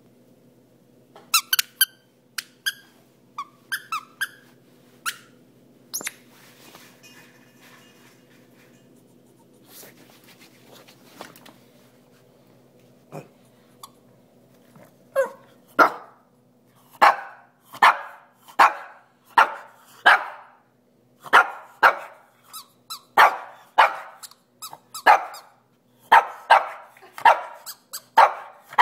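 Small pug–shih tzu mix dog giving a few short, high, squeaky yips in the first seconds. From about halfway through it barks steadily, roughly one bark every half-second to second.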